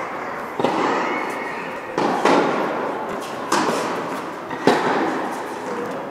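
Tennis ball hits and bounces in a rally: a series of sharp pops about a second apart, each echoing around the indoor hall.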